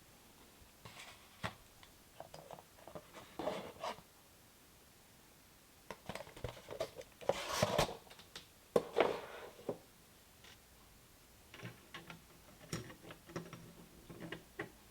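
Hands working on computer parts: irregular clicks, taps and rustling in three bursts, with the busiest and loudest stretch in the middle.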